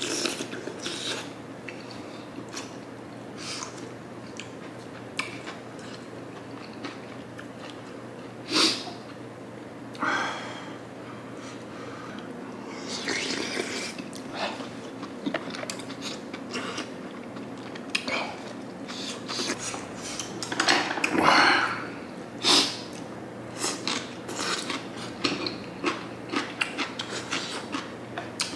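Close-miked eating of hot sundae gukbap (Korean blood-sausage soup): slurping broth from a wooden spoon, chewing, and breathing through the nose, with small clicks of the spoon against the earthenware pot. Several louder slurps stand out, the biggest about 21 seconds in.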